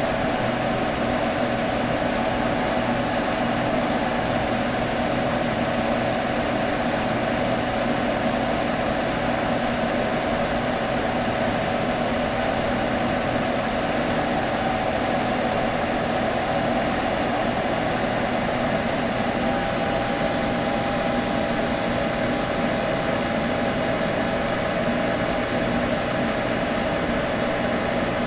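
Computer humming: a steady whir of fan noise with a few constant tones. A slightly higher tone joins about two-thirds of the way in.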